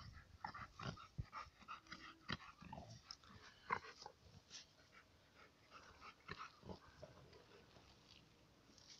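A wet long-haired dog rolling and wriggling on its back in grass: a run of short, irregular rustles and scuffs of fur against grass, densest in the first half and sparser after.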